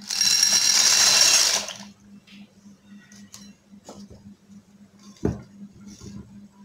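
Dry penne pasta poured from a steel bowl into a pot of water, a loud rattling rush lasting nearly two seconds. Then a silicone spatula stirs the pasta, with a few light knocks against the pot, the sharpest about five seconds in, over a steady low hum.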